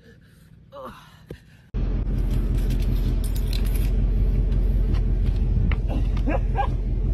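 Quiet at first, with a couple of brief voice sounds. Then, about two seconds in, a loud, steady outdoor rumble and hiss cuts in abruptly, and faint voices come through it near the end.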